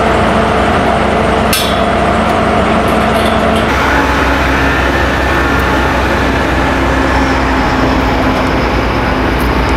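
Heavy machinery and vehicle engines running steadily, with several steady hum tones that shift about four seconds in. A single sharp clank comes about a second and a half in.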